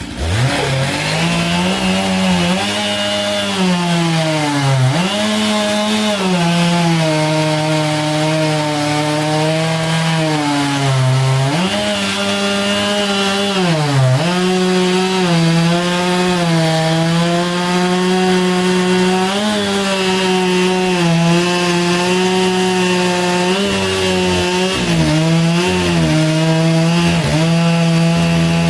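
Stihl 661 two-stroke chainsaw revving up to full throttle and cutting through a big log. Its engine note sags in pitch under load a few times and climbs back.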